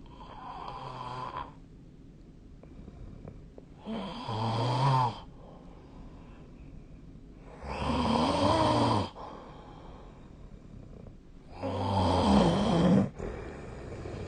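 A person snoring in sleep: four snores about four seconds apart, each lasting a second or so, the first much fainter than the rest.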